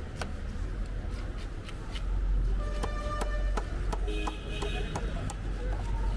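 Street traffic: a steady low rumble of passing vehicles, louder from about two seconds in, with two short vehicle horn toots around the middle and a second later, over scattered sharp clicks and knocks.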